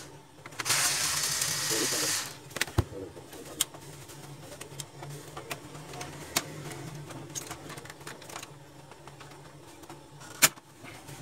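A loud burst of hissing for about a second and a half, then scattered clicks and taps of small parts and tools being handled during a laser printer's disassembly, over a low steady hum.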